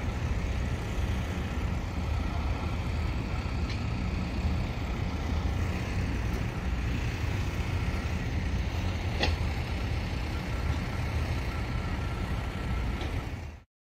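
Steady low engine rumble from vehicles in the background, with one sharp click about nine seconds in; it cuts off abruptly just before the end.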